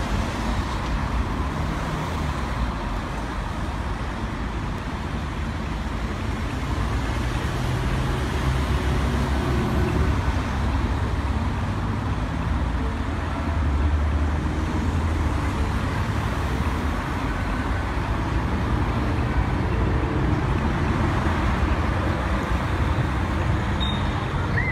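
City road traffic: a steady stream of cars and vans driving past on a multi-lane street, a continuous rush of engine and tyre noise that swells a little as vehicles go by.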